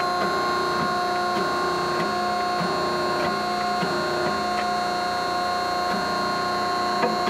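Hydraulic power unit of a Greenerd 10-ton C-frame hydraulic press running: a steady hum and whine from the 5 hp motor-driven pump as the ram travels. Faint light ticks come roughly every half second.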